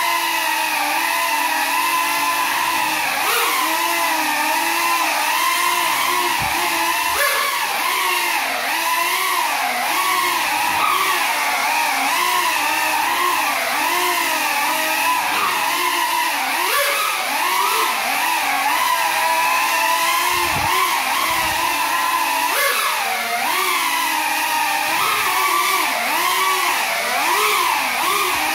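Small FPV quadcopter's motors and propellers buzzing in flight, the whine's pitch rising and falling constantly with throttle. The quad is flying on broken propellers.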